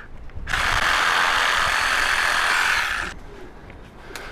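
Power saw cutting into a tree branch, run in one burst that starts about half a second in and stops abruptly about three seconds in.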